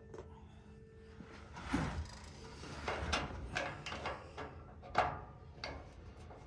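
A new plastic rocker power switch being worked into the heater's panel: a series of clicks, knocks and scrapes of plastic starting about two seconds in, the sharpest click near the end.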